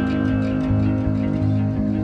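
Background music played on guitar, with held notes over a low bass line.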